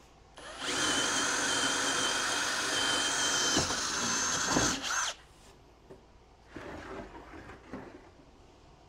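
Power drill boring a hole through an inch-thick hardwood cabinet door for a caster stem, running steadily for about four and a half seconds, its pitch shifting shortly before it stops. Softer handling sounds follow as the door is moved on the workbench.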